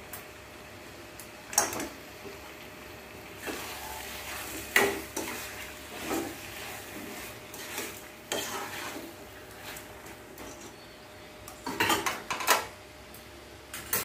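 Steel ladle scraping and clinking against a kadai as chicken pieces are stirred, in irregular strokes with pauses between them.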